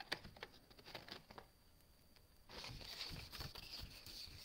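Scissors snipping through cardstock, several short snips in the first second and a half, then the sheet rustling softly as it is picked up and handled.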